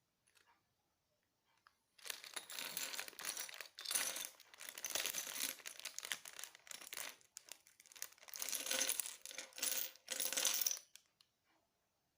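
Small plastic building bricks clattering and rattling against one another, as when loose pieces are poured or shaken out, in several spells that stop a little before the end.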